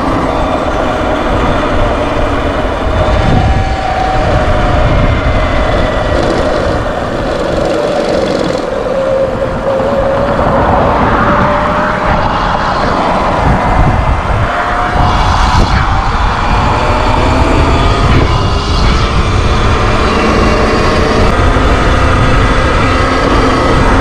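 Sur Ron X electric dirt bike riding at speed. The motor's whine slowly rises and falls in pitch with speed, over a steady rush of wind on the microphone and tyre noise from the gravel shoulder.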